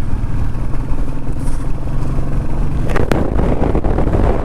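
Royal Enfield Meteor 350 being ridden on the road: a steady low engine and wind rumble, with a sharp click about three seconds in.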